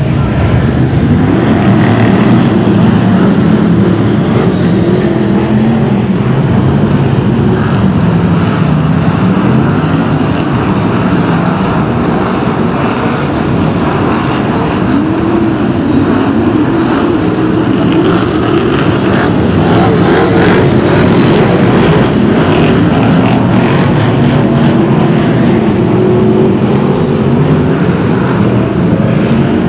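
A pack of BriSCA F1 stock cars' V8 engines racing, loud and continuous, with several engine notes rising and falling as the cars rev through the bends.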